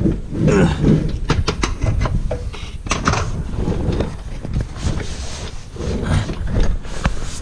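Handling noise of someone getting down and crawling under a car: scattered knocks, clunks and scrapes over a low rumble.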